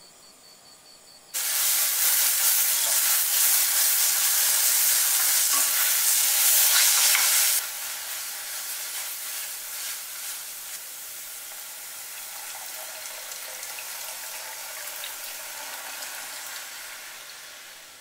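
Seaweed fulvescens (maesaengi) sizzling as it is stir-fried in sesame oil in a stainless steel pot, stirred with a wooden spoon. The sizzle starts suddenly about a second in, stays loud for about six seconds, then drops abruptly to a quieter sizzle that fades near the end.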